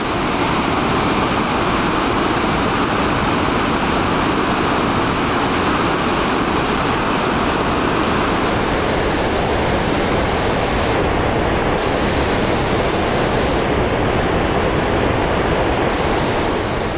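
Dettifoss, a 44-metre-high waterfall, making a steady, heavy rush of falling water.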